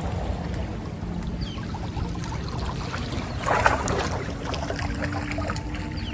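Mackerel splashing at the surface as they are reeled in on a fishing rod, a short splashy burst about three and a half seconds in, over a steady low rumble of wind or water.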